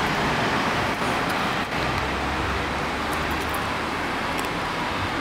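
Steady street traffic noise, with a vehicle's low rumble rising and falling in the middle.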